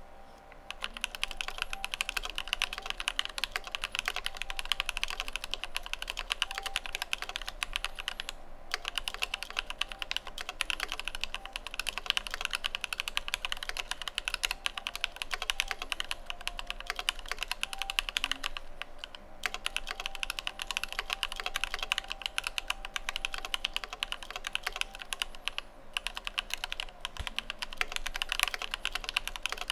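Fast, continuous typing on a mechanical keyboard with lubed Alpaca V2 linear switches and PBT cherry-profile keycaps: a dense run of key strokes and bottom-outs, pausing briefly three times.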